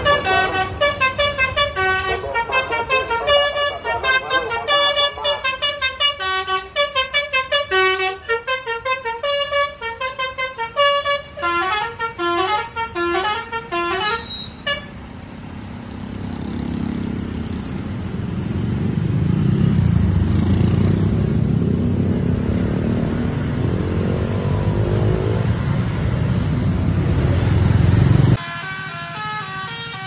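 A bus's telolet basuri horn plays a fast melody of stepped notes for about fifteen seconds. The tune stops and the bus's engine grows louder as it pulls past. Near the end, a different horn tune starts abruptly.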